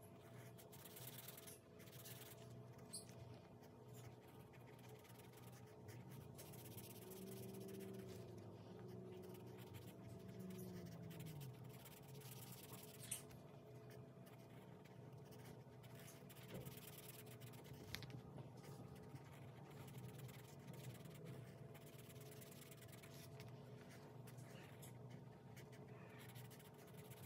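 Felt-tip marker scratching faintly on paper in short strokes as small printed icons are coloured in, with a couple of light taps.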